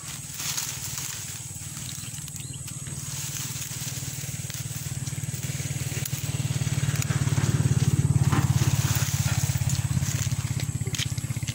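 A motorcycle engine running as it approaches, growing steadily louder to its loudest about eight seconds in, then easing slightly.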